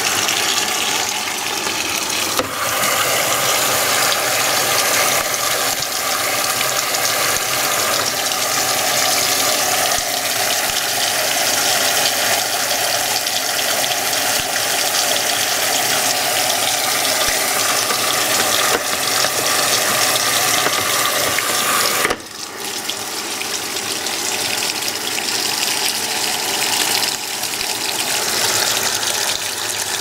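Haier top-load washing machine filling, water pouring from the detergent dispenser down the tub wall into the drum in a steady rushing splash. The sound dips briefly about three quarters of the way through, then carries on.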